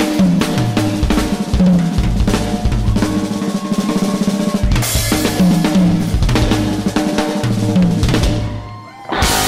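Live rock band playing, with the drum kit (kick, snare and cymbals) to the fore over electric bass and keys. Near the end the band drops out for a moment, then comes back in together.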